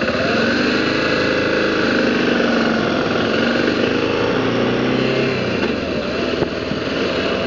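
BMW G650GS single-cylinder motorcycle engine pulling away from a stop and accelerating through a turn, its note rising in the first second, heard from the rider's seat.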